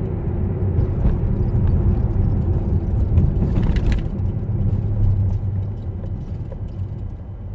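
Car engine and road noise heard from inside the cabin while driving: a steady low rumble that eases off near the end as the car slows.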